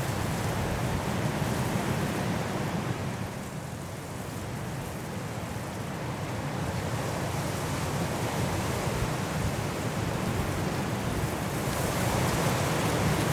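Strong wind blowing through trees in a snowstorm, a steady rushing that eases a few seconds in and builds to a stronger gust near the end.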